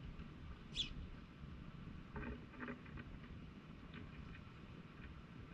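Faint clicks and ticks of mourning doves pecking at a pile of dried corn and seed close to the ground, in clusters around two to three seconds in, with one brief high-pitched chirp about a second in.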